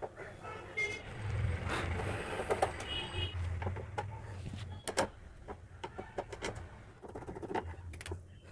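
A screwdriver working the screws of a gas stove's pipe fitting: scraping and rubbing of metal on metal with scattered sharp clicks, the loudest about five seconds in.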